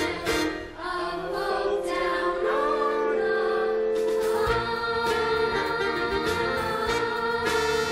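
A musical theatre ensemble singing with instrumental accompaniment, settling into long held notes about halfway through.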